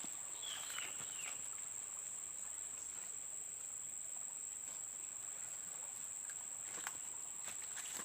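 Steady high-pitched insect drone. A few short falling chirps come in the first second or so, and a couple of sharp clicks come near the end.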